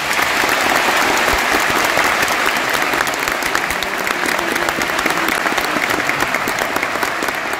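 Audience applauding, starting suddenly, then loud and steady, easing a little near the end.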